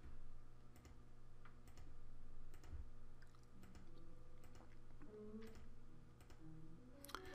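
Faint computer mouse clicks, about one a second, as anchor points are placed with the pen tool, over a low steady hum.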